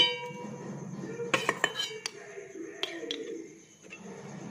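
Steel and glass kitchen containers being handled: a sharp ringing clink at the start, then a few lighter clicks and knocks a second or so later and again near the three-second mark.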